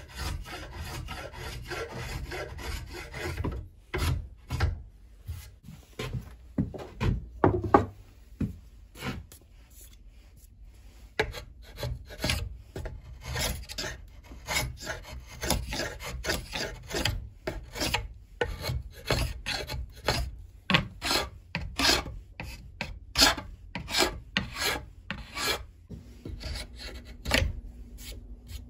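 A hand rasp scraping across a wooden axe handle as its end is shaped to fit the axe head: quick back-and-forth strokes for the first few seconds, then separate strokes about one or two a second, with a few low knocks partway through.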